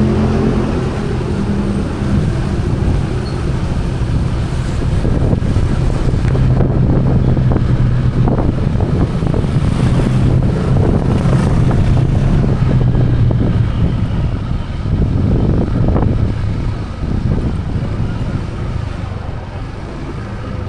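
A vehicle engine running steadily amid road traffic noise, with wind buffeting the microphone; the engine hum is strongest through the middle and eases toward the end.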